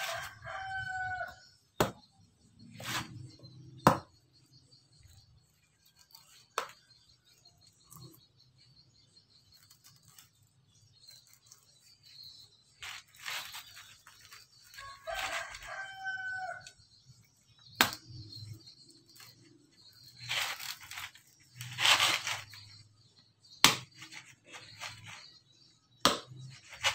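Machete chopping and prying the coir husk off a sprouted coconut: sharp knocks of the blade several times, with rough tearing of the fibres between them. A rooster crows twice, once at the start and again about halfway through.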